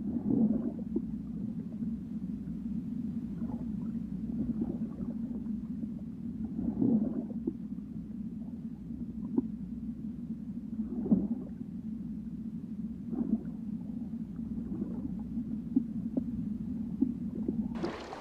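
Underwater water sound: a steady low rumble with gurgling, bubbly swells every couple of seconds. Just before the end it gives way to the hiss of rippling surface water.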